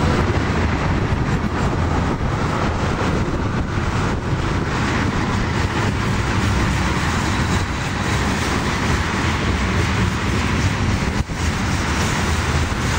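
Freight train passing: diesel locomotives running by, then the steady rumble of tank cars and covered hoppers rolling on the rails.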